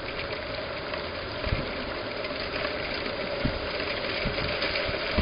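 Wind and rain on a security camera's outdoor microphone: a steady rushing hiss, with a few low thumps from gusts buffeting the microphone.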